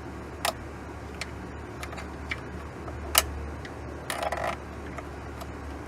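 Scattered sharp clicks and knocks of hard plastic and metal parts being handled as the cigarette lighter socket of a second-generation Dodge Ram is worked loose from behind the dash, the loudest about three seconds in and a short rattle a little after four seconds, over a steady low hum.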